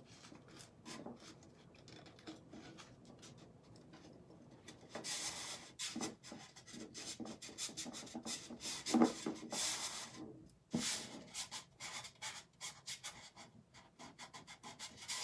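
Hands rubbing and pressing an adhesive mesh stencil flat against the side of a pitcher to work out air bubbles: a run of soft rubbing and scratching strokes, busier from about five seconds in.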